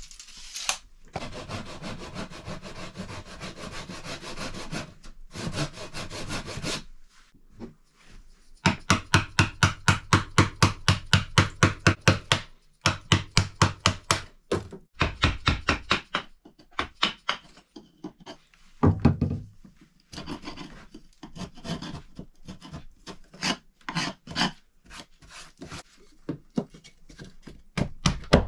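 Hand woodworking on a log post: rasping, then quick regular strokes like a hand saw cutting wood, about five a second. After that come a few heavy knocks and a run of irregular sharp taps, a hatchet striking wood.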